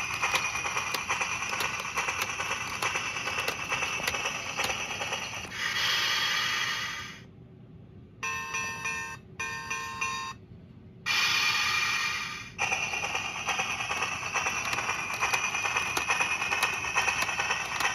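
Sammax Looney Tunes Limited battery toy train running on its plastic track: a steady motor whir with regular clicking from the wheels. In the middle it gives a hissing burst, plays a short electronic chime tune, hisses again, then runs on.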